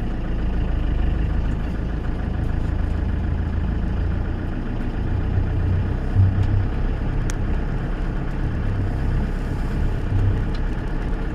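Camper van engine running, a steady low rumble, as the van moves off.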